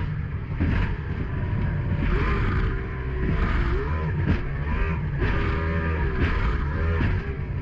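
Mercury 2.0-litre V6 two-stroke outboard running hard on a speedboat at speed, its pitch rising and falling several times, with wind and spray noise and repeated thumps as the hull hits the chop.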